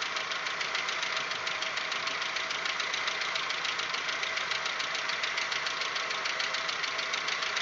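Warm Audi 1.8-litre 90 hp four-cylinder engine idling with a rapid, even metallic ticking from the valvetrain. The owner takes it for the hydraulic valve lifters knocking, a noise that comes on only once the engine is warm.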